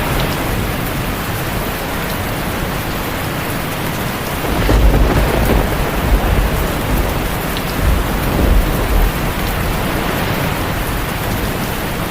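Steady heavy rain with low rumbles of thunder, swelling about four and a half seconds in and again about eight seconds in.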